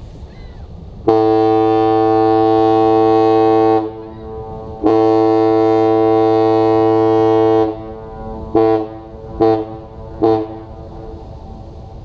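Lake freighter's deep air horn sounding two long blasts and then three short ones.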